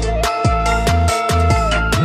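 Electronic dance music with a steady beat and deep bass notes that slide down in pitch.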